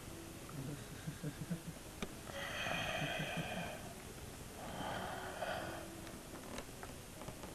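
A man breathing heavily: two long, noisy breaths, the first about two seconds in and the second about a second after it ends, with a low rough rasp around the first.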